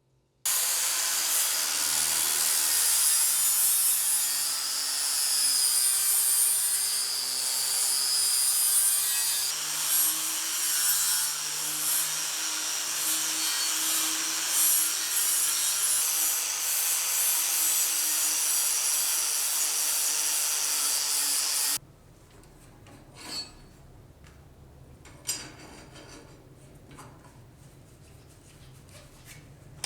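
Continuous abrasive rubbing on the rusty knife, like sanding, for about twenty seconds. It then stops, and a quieter stretch follows with two brief knocks.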